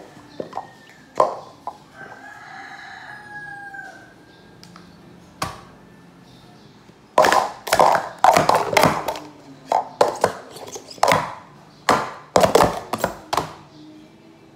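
Plastic speed-stacking cups clacking on a mat, a few single clacks and then a fast flurry from about seven seconds in as the cups are stacked up and brought down into one stack. About two seconds in, a rooster crows once, its call rising and falling.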